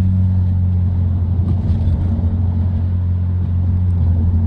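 BMW 328i's 2.8-litre straight-six and tyres giving a steady low drone as the car drives along, with no grinding from the wheel now that the failed drop link has been replaced.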